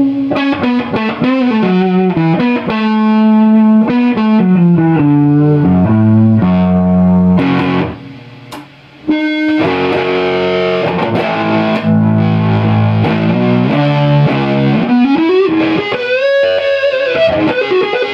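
Electric guitar played through a hand-built compressor/fuzz/sustainer circuit, with a distorted tone. Long held single notes step down in pitch. The sound drops away briefly about eight seconds in, then comes back with more held notes and bends near the end.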